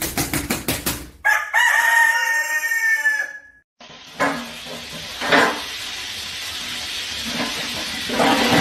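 A rooster beating its wings in quick strokes, then crowing once, one long call lasting about two seconds. After a short break, a steady hiss with a few louder knocks.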